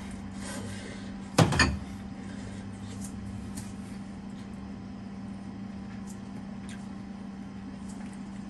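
A ceramic rice bowl is set down on the counter with a short, sharp double knock about a second and a half in, over a steady low hum.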